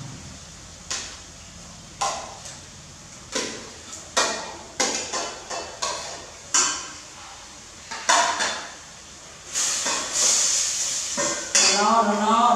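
A metal spoon clinking and scraping against a ceramic plate and a stainless steel cooking pot as food is spooned into the pot, a dozen or so separate sharp clinks, with a short hiss about ten seconds in. A voice comes in near the end.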